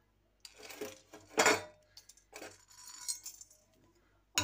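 Kitchen utensils clinking and rattling, metal and glass, in three short bouts, the loudest about one and a half seconds in.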